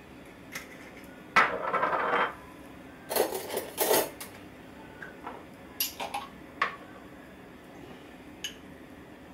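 Kitchen clatter of bottles, jars and utensils being handled at the stove: two loud spells of clinking and knocking, one about a second and a half in and another about three seconds in, then scattered single clinks and taps.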